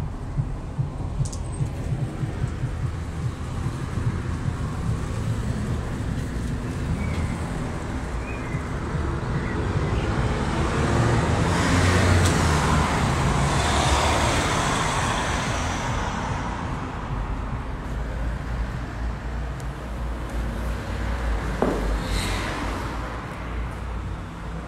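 A car passing on the street outside: its noise swells to a peak about halfway through and fades away, over a steady low traffic rumble.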